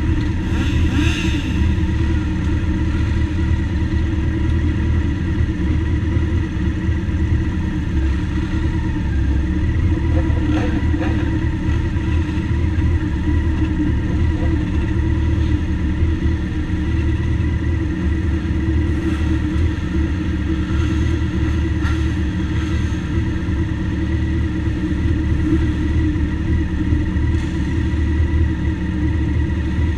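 Motorcycle engines idling together: a steady low rumble that holds an even pitch throughout.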